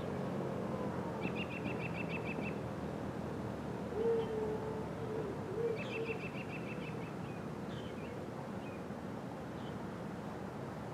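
Outdoor birdsong: a songbird gives two short, rapid trills about a second and six seconds in, and a lower call of several notes sounds about four seconds in, over a steady background hush.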